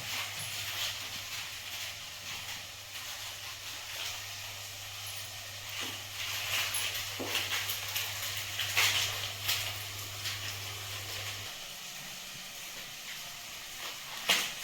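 Food frying in a pan on a gas stove: a steady hiss with irregular crackles, busiest in the middle. A low hum stops about three seconds before the end, and a sharp click comes near the end.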